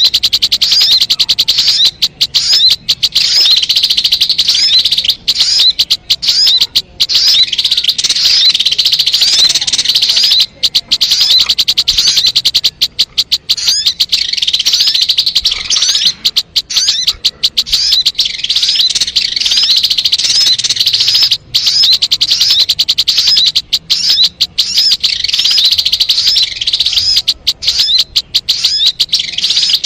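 Song of the bird called sogon in Indonesia, used as a lure call for trapping: a continuous stream of rapid, high-pitched chirping notes with only brief breaks.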